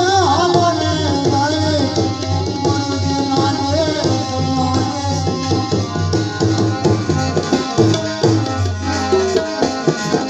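Indian music with tabla playing a steady rhythm under sustained melodic accompaniment; an ornamented, wavering melody line stands out near the start.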